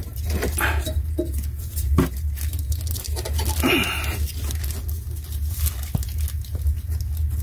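Hands handling a tape-wrapped wiring lead and plastic connector: scattered clicks and rustling, with a short scratchy rasp about halfway through, over a steady low hum.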